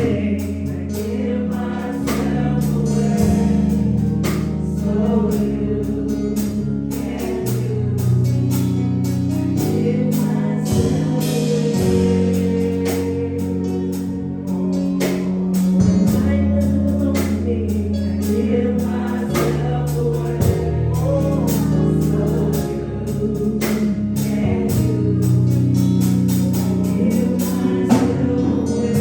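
Gospel music with a choir singing over sustained keyboard or organ chords and a moving bass line.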